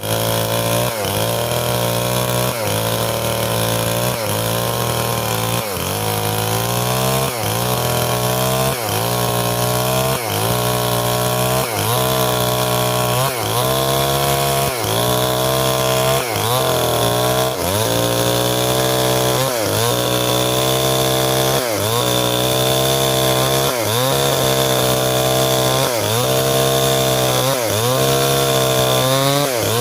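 Stihl 070 two-stroke chainsaw running under load while ripping timber lengthwise into beams, its engine note sagging and picking up again about every second and a half.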